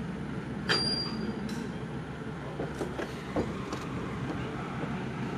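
Forklift engine running steadily, with metal knocks and a brief high squeal about a second in and a few more knocks around three seconds in.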